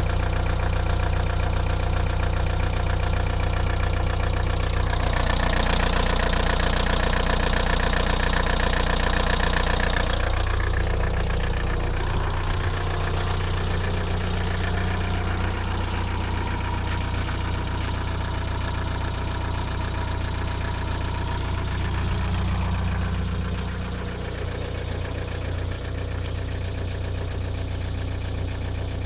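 VW Golf III 1.9 TDI 90 hp four-cylinder turbodiesel idling with a quick, steady ticking knock, louder and brighter for a few seconds about five seconds in. The owner takes the tick for play in a piston wrist pin; new lifters and injectors have not cured it, and oil pressure is fine.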